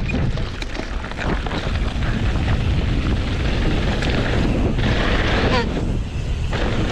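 Wind buffeting the microphone of a mountain bike rider's camera while riding downhill, with the tyres rolling over dirt and rocks and the bike rattling. A brighter hiss comes in the middle of the stretch.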